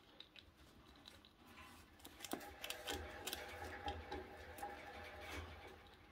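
A degu gnawing and chewing seeds from a parsley-and-seed treat bell: faint, irregular crunching clicks, busiest through the middle.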